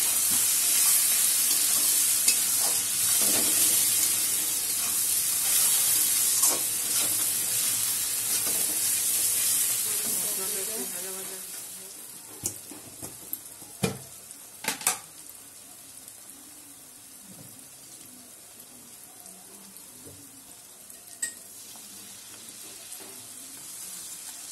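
Onion and spice masala sizzling in hot oil in a metal kadai while a metal spatula stirs it. The sizzle is loud at first and dies down about halfway through, after which a few sharp clicks of the spatula against the pan stand out.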